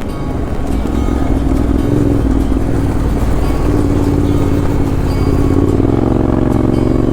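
Yamaha Ténéré 700's parallel-twin engine running while riding, its note rising from about six seconds in as the bike accelerates.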